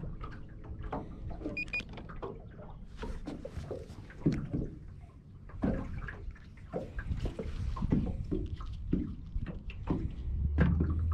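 Small waves lapping and slapping irregularly against the side of a small fishing boat. Near the end a steady low electric trolling-motor hum starts up.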